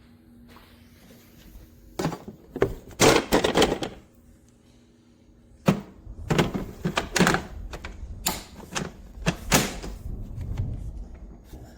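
Knocks, clicks and rattles of a cordless electric mower's handle and controls being worked by hand, in three bouts of clatter with brief pauses between. The mower is not cutting.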